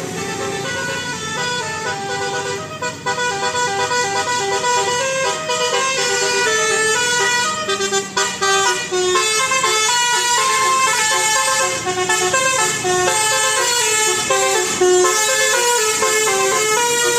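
Bus telolet horn, a multi-trumpet Basuri-type electric horn, playing a quick melody of short stepped notes without a break.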